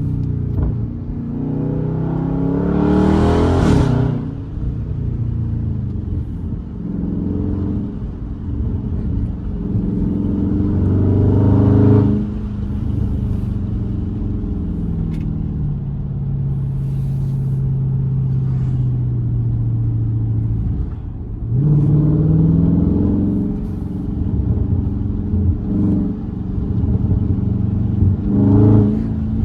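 Dodge Charger Scat Pack's 392 (6.4-litre) Hemi V8 breathing through a JLT cold-air intake. It revs up under hard acceleration, with the pitch climbing and dropping sharply at upshifts about 4 s and 12 s in. It then holds a steady, slowly falling drone, and pulls hard again from about 21 s in.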